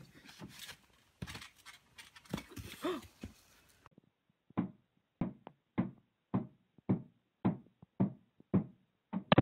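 Claw hammer striking a hard surface in a steady rhythm, nine sharp blows a little under two a second, starting about four seconds in. Before that, a few seconds of scattered outdoor thumps and noise.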